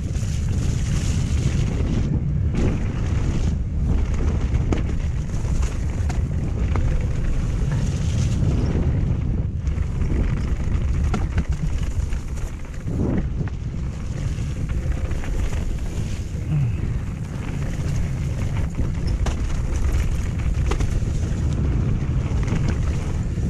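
Wind buffeting the camera microphone during a fast mountain bike descent, over the rumble of tyres rolling on wet dirt and gravel, with scattered knocks and rattles from the bike on rough ground.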